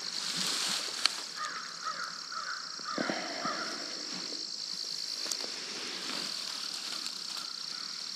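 Insect chorus trilling steadily in a high, even buzz throughout. From about a second and a half in, a bird gives a quick series of about half a dozen calls over two seconds. A single sharp click comes about a second in.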